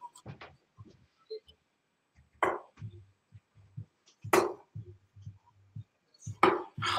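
Darts striking a bristle dartboard: three sharp thuds about two seconds apart.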